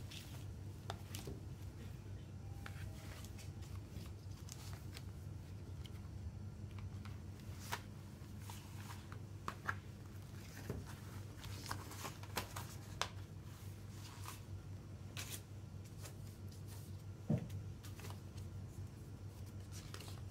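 Hands handling cardboard CD packaging and a printed booklet on crumpled paper: scattered light taps, slides and rustles over a steady low hum, with one louder knock late on.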